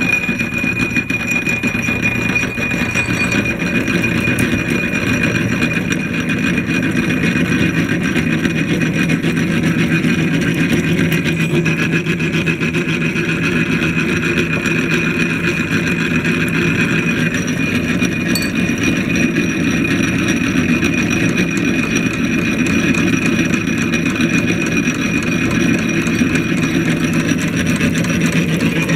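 A.D. Vance No. 12 hand-cranked blacksmith drill press turning steadily as its bit cuts into metal, with a constant high whine.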